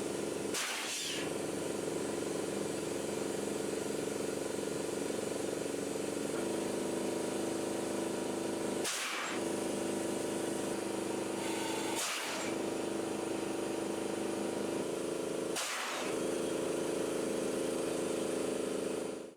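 An engine running steadily, its tone shifting slightly twice, with four short hissing bursts spread through it.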